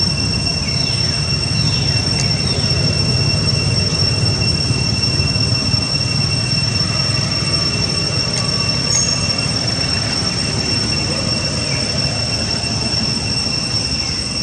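Cicadas droning steadily at a high pitch in two even tones, over a low rumble.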